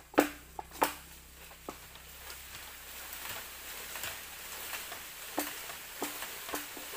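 Bamboo being chopped with a blade: two loud, sharp strikes about half a second apart near the start, then lighter, scattered knocks, several with a short hollow ring.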